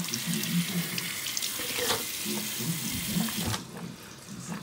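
Water running from a tap into a sink in a steady hiss, cut off suddenly about three and a half seconds in.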